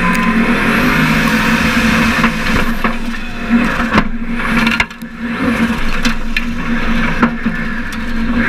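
Formula offroad buggy's engine heard from onboard, running steadily through a hillclimb run, with several sharp knocks from the chassis and dirt striking the car. The engine sound dips briefly a little before halfway.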